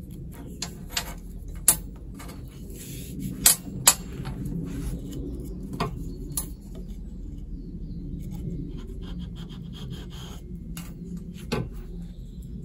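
Handling noise from a paracord bracelet being unpicked with a knife on a wooden table: scattered sharp clicks and taps of small hard parts and the blade, with the cord rubbing. The loudest two taps come about four seconds in.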